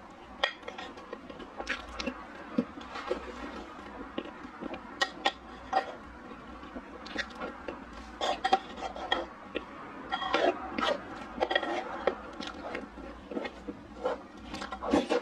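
A spoon scraping and clicking against a plate as it scoops soft chocolate mousse cake, in irregular sharp clicks that come thickest about two-thirds of the way through, with close-miked mouth sounds of eating.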